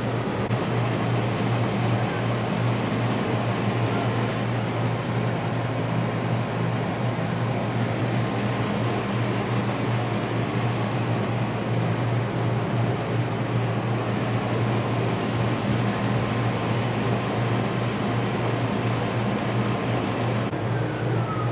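Steady mechanical hum with an even rushing hiss, unchanging throughout, heard inside an enclosed Ferris wheel gondola.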